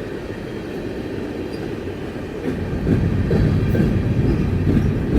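A train passing slowly along the track, its steady rumble growing louder about halfway through.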